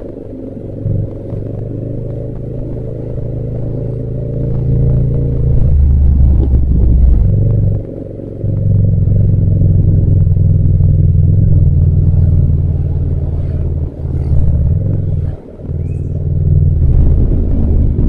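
Yamaha MT-07's 689 cc parallel-twin engine under way, getting louder over the first several seconds as it pulls. It holds strong, then drops off briefly about 8 seconds in and twice more near the end before picking up again.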